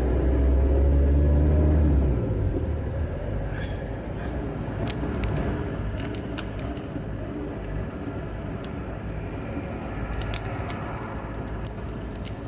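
Road noise from a car driving along a city avenue: a loud, deep engine rumble with a rising note for the first two seconds as it accelerates, then steady engine and tyre noise with a few light clicks.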